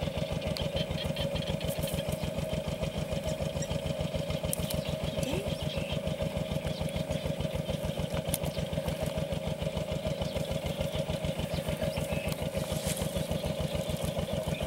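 A small engine idling steadily, with a fast, even pulse and a constant hum.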